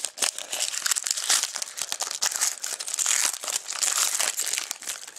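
Foil trading-card pack wrapper being torn open and crinkled by hand: a dense, irregular run of crackling and crinkling.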